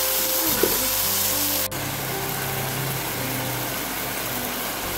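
Chopped tomatoes frying in oil in a kadhai, a steady sizzle, under background music with held notes. Both shift abruptly a little under two seconds in.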